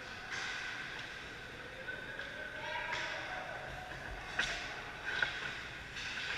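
Ice hockey play close to the goal: skates scraping the ice, with two sharp cracks of stick or puck about four and five seconds in, over faint voices in the rink.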